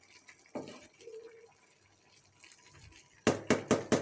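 Faint wet stirring in a cooking pot, then near the end five quick sharp taps, a spatula knocked against the rim of the pot.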